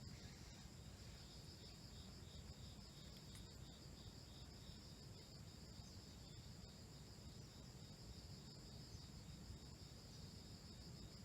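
Faint, steady high-pitched chirring of insects, pulsing about three times a second, with a few faint clicks.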